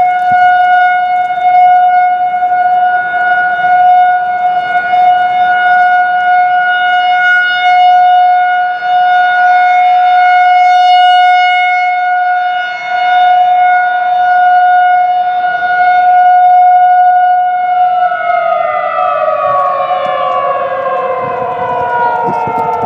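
Federal Signal 2001-SRNB rotating tornado siren sounding a single steady tone, swelling and fading in loudness as it rotates. Near the end the power cuts and it starts winding down, its pitch falling steadily.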